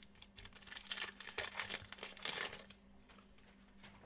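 Plastic trading-card pack wrapper crinkling and tearing as a pack is opened, with a dense burst of crackling about a second in that lasts under two seconds.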